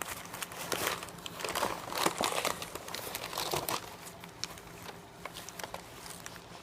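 Packaging being handled and unwrapped by hand: irregular crinkling and rustling, busiest in the first few seconds and then tapering off.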